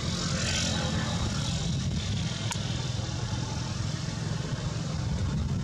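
A steady low engine rumble, as of a vehicle idling, with a brief hiss about half a second in and a faint click near the middle.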